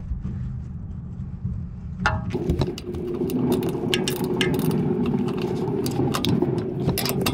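Ratcheting box-end wrench clicking in short irregular runs as it works a bolt, with metal ticks and taps, over a steady low hum that fills out about two seconds in.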